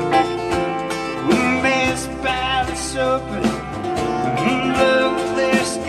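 Live country band music: acoustic guitar strumming steadily over a drum kit with cymbals.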